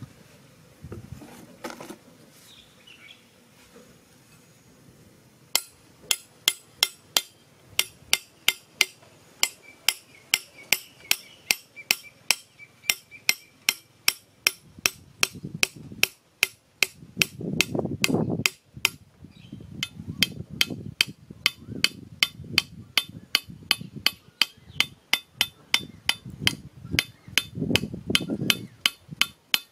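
Machete striking over and over, hammering something into the ground, about three blows a second with a sharp metallic ring to each. The blows begin about five seconds in.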